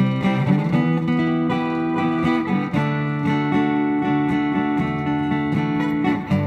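Band playing an instrumental break: strummed guitar chords, with no singing.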